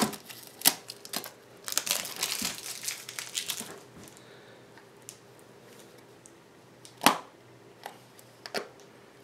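Tape being peeled off a plastic deli cup, crackling for about two seconds, with sharp clicks and taps of the plastic cup and lid, the loudest about seven seconds in.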